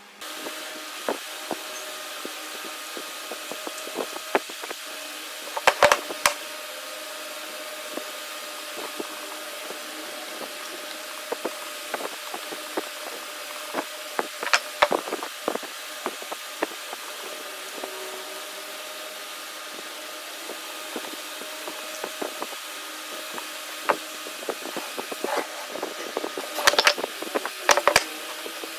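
Steady motor hum of an electric fan, with scattered wooden knocks and clicks as table-leg pieces are set down and handled on a wooden workbench, loudest in a cluster about six seconds in and again near the end.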